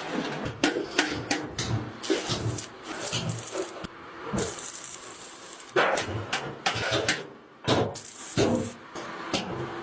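Irregular knocks, clatter and scraping from hand work with tools, roughly one or two sharp strikes a second, with a short pause a little past halfway.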